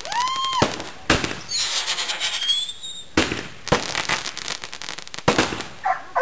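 Consumer fireworks going off: a whistle that rises and then falls in pitch, then a run of sharp bangs a second or two apart with crackling between them.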